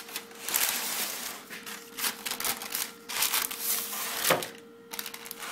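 Metal baking tray being slid into a hot oven: an uneven run of scraping and rattling against the oven shelf, with a sharp knock about four seconds in. A steady hum runs underneath.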